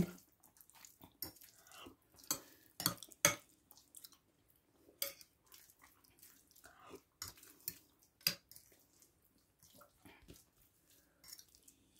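Cutlery clinking against a plate during a meal, in scattered light clicks a second or so apart.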